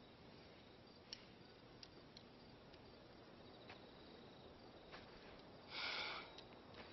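Near silence: faint room tone with a few light clicks and a short, soft rustle about six seconds in.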